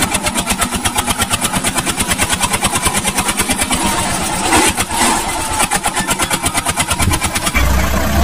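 Mini tractor engine chugging at an even, rapid beat of about nine strokes a second. Near the end it changes to a deeper, steadier drone.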